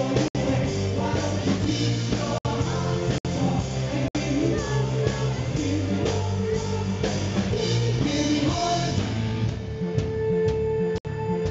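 A live pop-rock band playing, with male vocals over guitar, keyboard and drums. The sound cuts out for an instant several times, and a long held note runs through the last couple of seconds.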